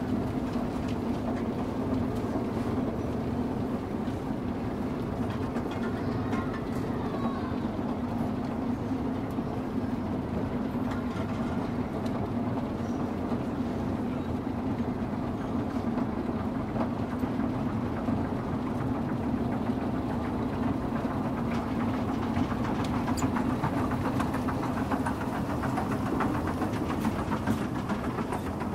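A steady mechanical drone with a constant low hum, like an engine or motor running without change.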